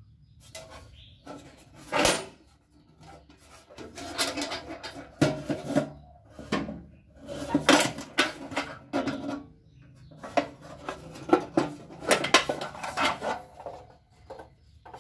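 Toolbox being handled: irregular knocks and clattering in bunches, with a sharp single knock about two seconds in.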